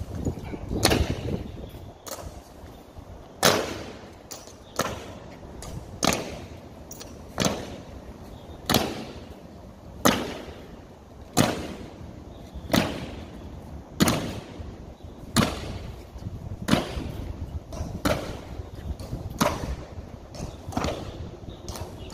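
Honour guards' boot heels striking the pavement in a slow, measured ceremonial march: a sharp crack about every 1.3 seconds, with fainter steps in between.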